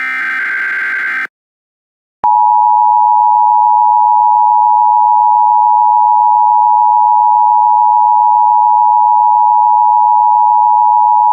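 Emergency Alert System broadcast: the last of the screeching SAME header data bursts ends about a second in. About two seconds in, the loud, steady two-tone EAS attention signal starts and holds.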